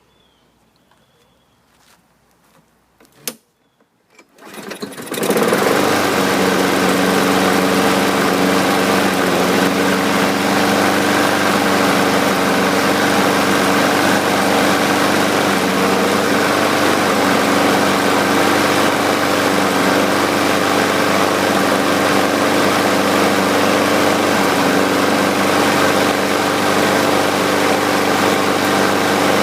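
Briggs & Stratton engine on a Brute walk-behind lawn mower, fitted with an automatic choke, pull-started. It catches a little over four seconds in and then runs steadily at a constant speed.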